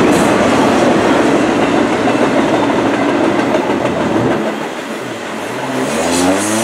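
Double-stack intermodal container cars rolling past, with the steady noise of steel wheels on rail that eases about four seconds in. Near the end a road vehicle passes, its engine note rising and then dropping in pitch.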